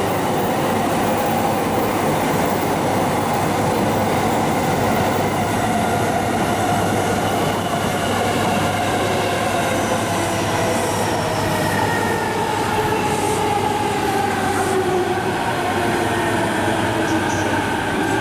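A JR East electric commuter train running through the station: a loud, steady rumble of wheels on rail with whining tones that slowly fall in pitch in the second half.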